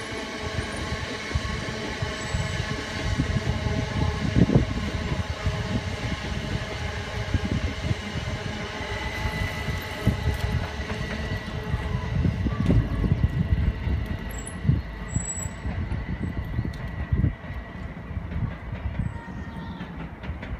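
Electric multiple unit train running past and away: several steady whining tones over the rumble and knocks of its wheels on the rails. The higher tones fade out about halfway through as it recedes.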